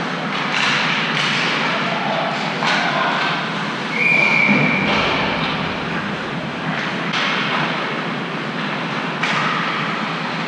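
Game-side ambience: a steady wash of noise from the venue and crowd, several sharp knocks, and one steady high whistle blast lasting about a second near the middle.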